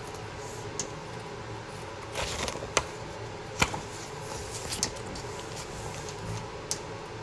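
Room tone: a steady low hum with a few scattered soft clicks and taps.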